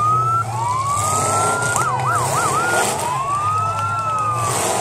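A siren sounds a slow rising-and-falling wail, breaks into three quick yelps about two seconds in, then returns to a wail. Underneath, demolition derby car engines run with a steady low hum.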